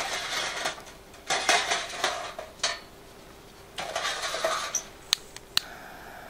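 Clattering and scraping of a homemade metal twig stove and its sticks being handled and set in place on a grill stand. Near the end come two sharp clicks as a lighter is sparked, then the steady hiss of its flame, lighting the twigs.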